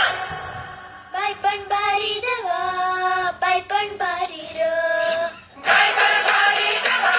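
Background song: a high singing voice holding and bending melodic notes over music. The sound dips just after the start and drops out for a moment about five and a half seconds in, then the fuller accompaniment returns.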